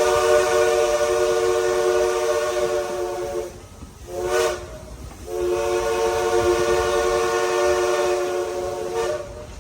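Princeton three-chime steam whistle on Southern Railway steam locomotive 4501 sounding a chord: a long blast, a short toot, then another long blast.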